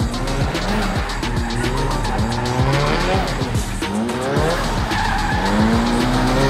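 A Nissan 180SX drift car is sliding around the track: the engine revs rise and drop again and again, over tyres squealing and scrubbing on the wet tarmac.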